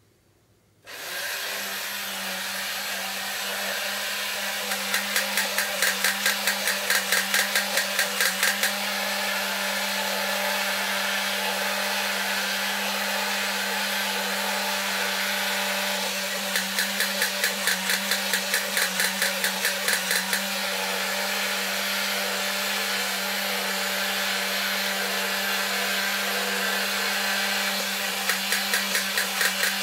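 1960s Daiya-made Cragstan Astronaut battery-operated tin robot switched on about a second in, its small electric motor and gears whirring steadily as it walks. Three times, for about four seconds each, its gun-firing noisemaker adds a rapid rattle of about four clicks a second.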